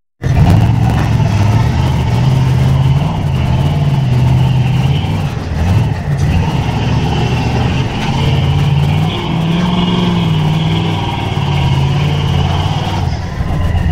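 Off-road truck engine revving, its pitch rising and falling repeatedly.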